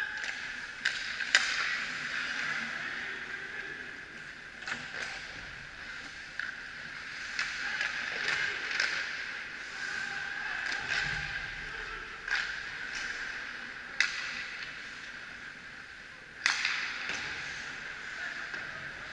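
Ice hockey play in a rink: skates scraping and hissing on the ice, with several sharp clacks of sticks and puck, the loudest about a second in and twice in the second half.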